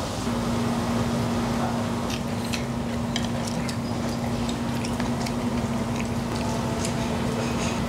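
Beef tripe and ribs sizzling in a grill pan over a portable gas stove, with scattered sharp crackles and a steady low hum underneath.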